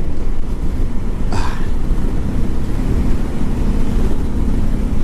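Motorcycle riding at speed: steady engine and wind rumble on the microphone, with one short higher-pitched noise about a second and a half in.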